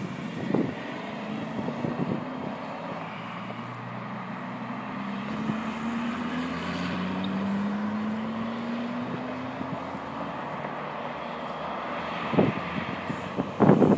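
Sports car engines running on a track, with one engine note rising slowly as a car accelerates away. A few loud bumps come near the end.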